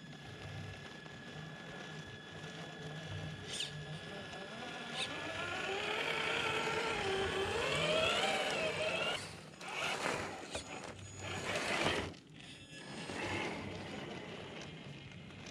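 Traxxas TRX-4 RC crawler's electric motor and gears whining, the pitch rising and falling with the throttle as it drives close past. This is followed for a couple of seconds by rough bursts of noise from the tyres working through snow.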